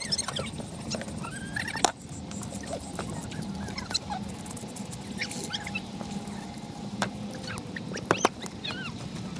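Short, high-pitched squeaky animal calls scattered through, with a few sharp clicks.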